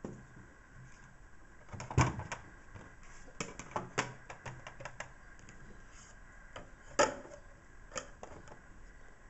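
Wooden panels of a handmade gear-driven box being handled and fitted into place: a series of light wooden knocks and clicks, with sharper knocks about two seconds in and again about seven seconds in.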